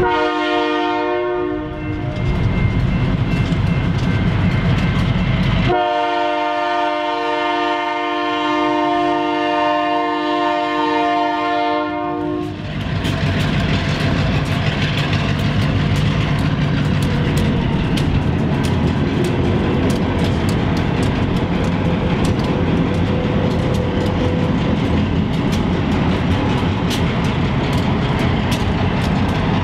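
Union Pacific freight diesel locomotive's multi-note air horn sounding for a grade crossing: one blast ending about two seconds in, then a long blast from about six to twelve seconds. After that the locomotives rumble across the crossing, wheels clacking over the rail joints.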